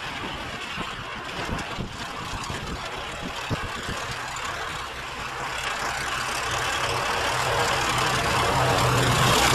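Modified John Deere 1032 walk-behind snowblower with a 16 hp engine, running under load as it cuts through deep snow, together with the hiss of the snow it throws. It starts faint and grows steadily louder over the second half as it comes closer.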